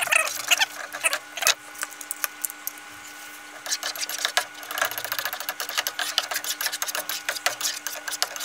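Plastic slotted spatula scraping and tapping around a nonstick frying pan as beaten eggs are stirred and scrambled. It is a run of quick, uneven clicks and scrapes, busiest from about halfway on.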